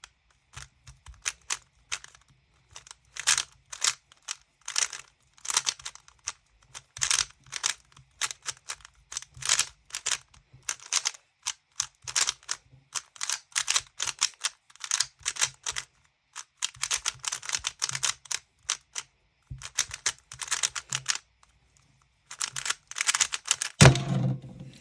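Plastic speedcube being turned fast during a timed solve: rapid runs of clicking layer turns broken by short pauses, with a louder thump about a second before the end.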